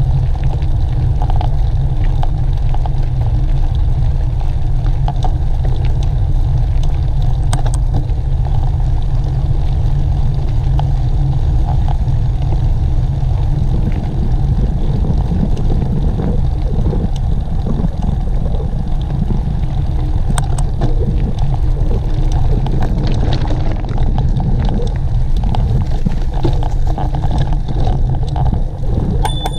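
Steady low rumble of wind and motion noise on a moving camera's microphone, with scattered clicks and rattles.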